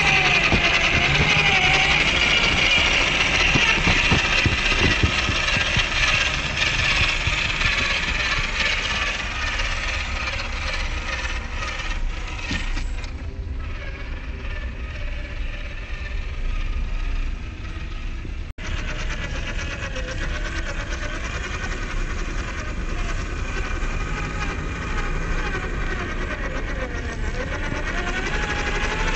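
Electric motor and geared drivetrain of a WPL C74 1:10 RC crawler driving through snow: a steady whine and gear noise whose pitch rises and falls with the throttle. It is quieter in the middle, and there is a momentary dropout about two-thirds of the way in.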